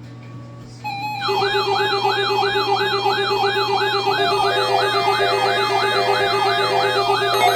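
Emergency-alert test signal: an electronic siren-like tone wailing up and down about three times a second over steady held tones. It cuts in loudly about a second in, and more tones join near the end.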